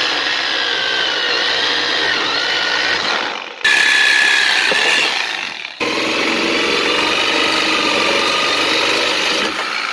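Reciprocating saw running and cutting into an exhaust pipe, its motor whine wavering in pitch as the blade loads up. It runs in three stretches with two brief breaks.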